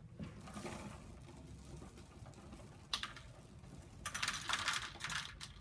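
Dry Apple Jacks cereal poured from its box into a plastic bowl: a rattling patter of pieces landing for about a second and a half near the end, after a single click about halfway through.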